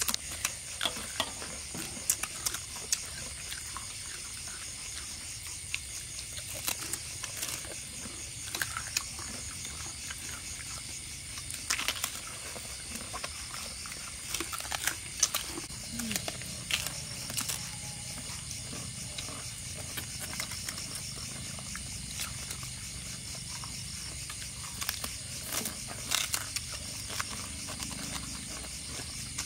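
Insects buzzing steadily at a high pitch, with irregular clicks and taps scattered through.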